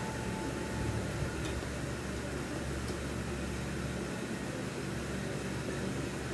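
Steady low hum and hiss of background noise, with a couple of faint ticks.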